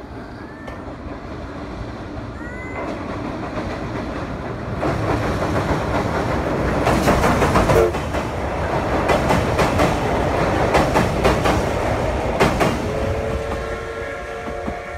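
A steam-hauled passenger train crossing a steel girder bridge, its wheels clattering over the rail joints and growing louder as the coaches pass close by. Near the end, the locomotive's steam whistle begins blowing a long chord of several tones.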